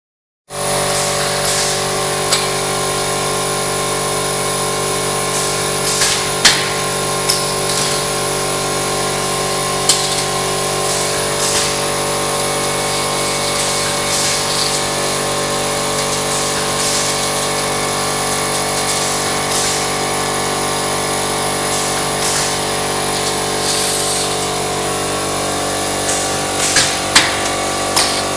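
Mobiprof GK roll-forming machine for drywall profiles running steadily, a constant mechanical hum with several steady tones, with a few sharp metallic clicks now and then.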